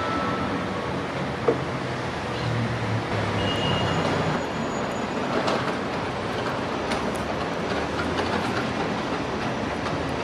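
A passenger train running on the tracks: a steady rumble of wheels on rail, with scattered faint clicks.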